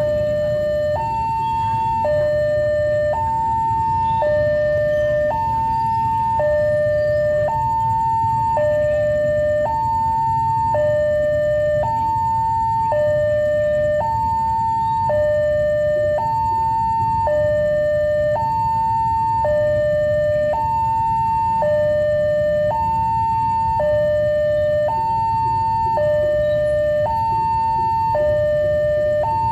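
Level-crossing warning alarm: an electronic two-tone signal alternating steadily between a high and a low tone, each held about a second, sounding while the barriers are down for an approaching train.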